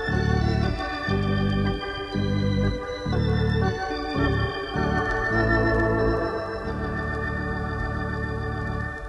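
Electronic organ playing the instrumental opening of a Dutch gospel song: sustained chords over low bass notes that change every half second or so, settling into one long held chord in the second half.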